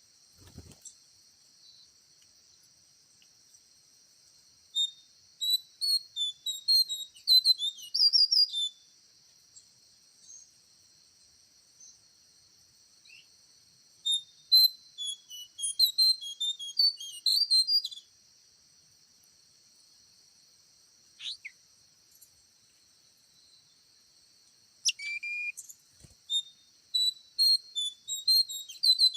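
Small songbird singing: three bursts of quick, high chirping and whistled notes, each lasting about four seconds with quiet gaps between. A steady high insect drone runs beneath.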